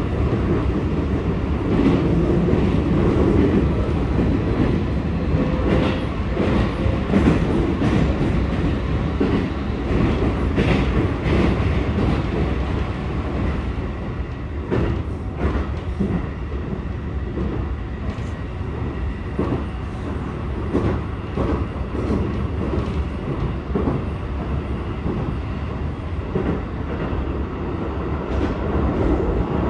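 Keikyu 1000 series commuter train with Toshiba PMSM traction motors running, heard from inside the passenger car: a steady rumble of wheels on rails with repeated clacks from the track.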